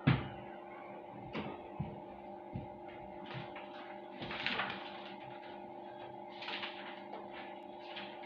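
Paper notebook being handled, its pages rustling in short bursts, with a longer rustle about halfway through. A knock comes right at the start, and a steady hum runs underneath.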